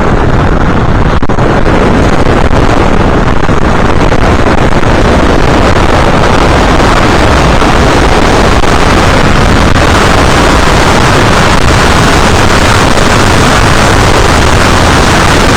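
Steady, very loud wind rush on an FPV aircraft's onboard camera microphone in flight, mixed with its motor running.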